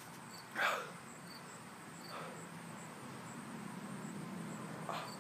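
Insects chirping steadily in the background, high and repeating about twice a second, with a few short, breathy exhales from a man reacting to a burning-hot pepper, the loudest about a second in.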